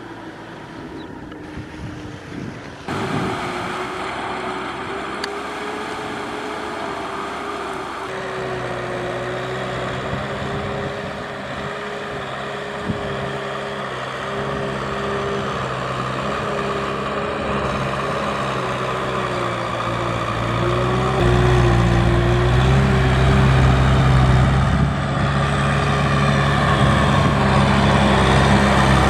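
Kubota M6040 tractor's four-cylinder diesel engine running under load while hauling rice, growing louder and heavier as it comes closer, over a steady, slightly wavering hum.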